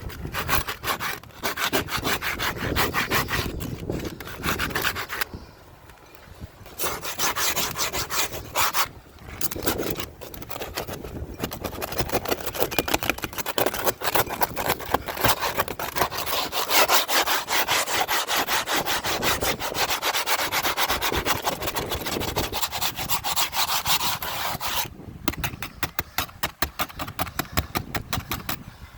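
Rapid, rasping scraping strokes in long runs broken by short pauses, turning to sparser, separate strokes near the end.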